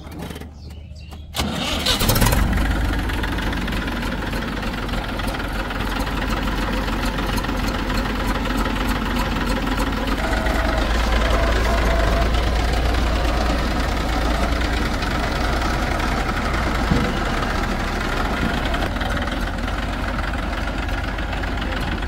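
A diesel engine starts up about a second in, then runs steadily with a deep, even drone.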